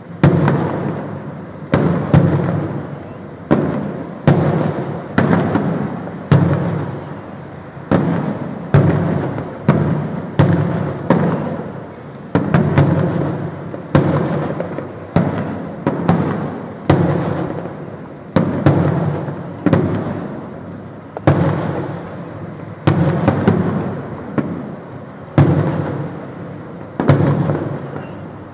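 Aerial firework shells bursting in rapid succession, about one bang a second, each bang trailing off in an echo before the next.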